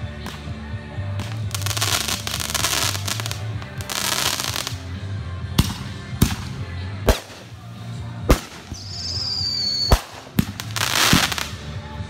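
Consumer aerial fireworks launching and bursting: hissing stretches, then a run of about seven sharp, irregular bangs in the second half. A short whistle slides down in pitch just before one of the later bangs.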